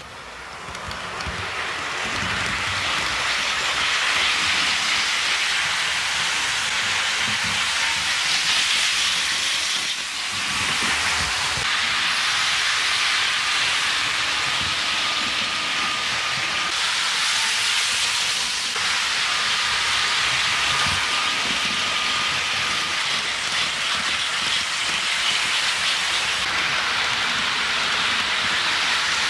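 HO-scale model trains running on track, the Piko ICE 3 and the Bachmann Acela Express: a steady whirring hiss of their motors and wheels on the rails. A faint thin whine comes and goes twice in the middle.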